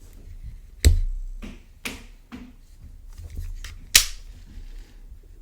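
Sharp mechanical clicks from a baitcasting reel being handled: four clear clicks about a second apart, with fainter ticks between them.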